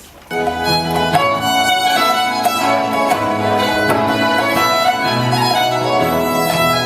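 Instrumental music with violin prominent, starting abruptly a moment in and then playing steadily.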